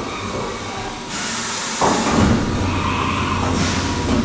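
Haas CNC mill machining with coolant blasting, heard through the enclosure. A coolant spray hiss comes in about a second in, then the cut and a steady low machine hum come in louder near two seconds in.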